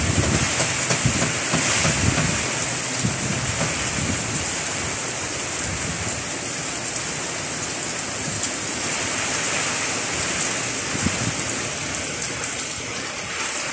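Severe tropical storm: heavy rain and strong wind making a steady rushing hiss. Gusts buffet the microphone with a low rumble in the first few seconds, and the storm noise eases slightly toward the end.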